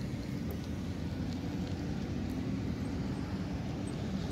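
Steady low outdoor rumble with a few faint ticks.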